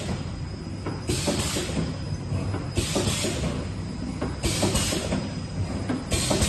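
Donut production-line machine running, with a steady low mechanical clatter and a faint high whine. A short hiss repeats about every 1.7 seconds, four times, with each machine cycle.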